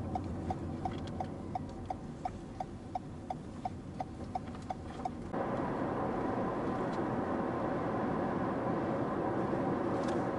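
Car turn indicator ticking steadily, a little under three ticks a second, over low road noise inside the cabin; about five seconds in the ticking stops and louder, steady tyre and engine noise of the car under way takes over.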